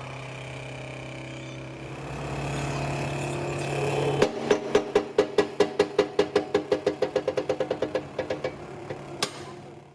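Hydraulic press running with a steady hum that grows louder and more strained about two seconds in, as if coming under load. A little after four seconds a fast series of sharp clicks starts and quickens to about seven a second, stopping after about four seconds, with one last sharp crack near the end.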